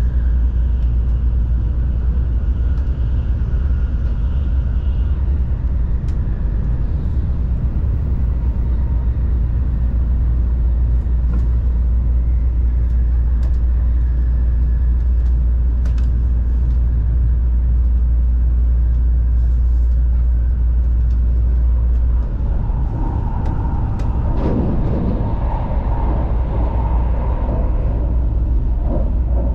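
Steady low rumble of a Tokaido Shinkansen N700-series train running at speed, heard inside the passenger cabin. About two-thirds of the way through the deepest part of the rumble eases and a rougher, higher noise comes in for several seconds.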